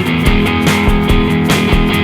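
Background music: a rock-style track with guitar over a steady drum beat.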